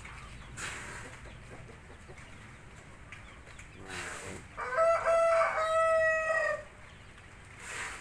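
A rooster crowing once, a single call of about two seconds a little past halfway that rises briefly and then holds its pitch.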